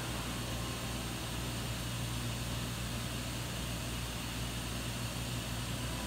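Bridgeport VMC 1000 CNC vertical machining centre standing powered up with no cutting, giving a steady electrical hum with a low drone and a hiss of fans.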